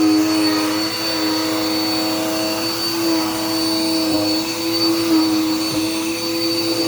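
Dirt Devil Power Max vacuum cleaner running steadily: a steady motor hum with a thin high whine above it.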